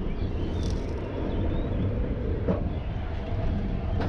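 Expedition Everest roller coaster train running along its track: a steady, loud rumble.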